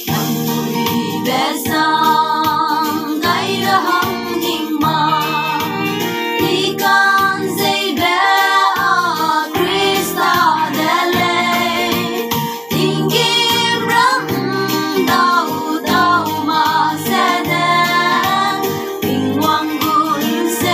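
Five young women singing a song together as a group, their voices blended like a small choir.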